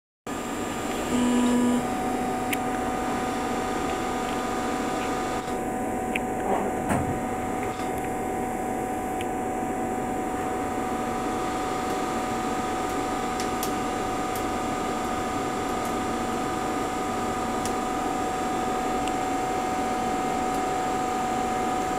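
Steady machine hum with several fixed tones from the powered-up EMCO Emcoturn 332 MC Plus CNC lathe, with a short louder low tone about a second in and a few faint clicks.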